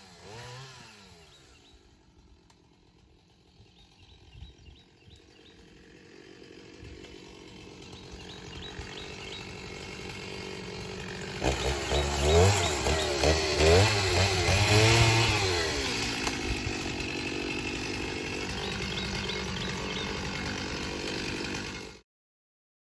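A small petrol engine revving up and down several times, growing louder to a peak partway through, then running more steadily before it cuts off suddenly near the end.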